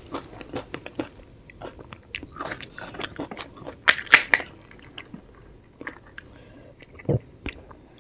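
Close-miked chewing of a mouthful of panipuri, the crisp fried puri shells crunching as a run of small crackles and mouth clicks. A louder burst of crunches comes about halfway through, and a short low thud near the end.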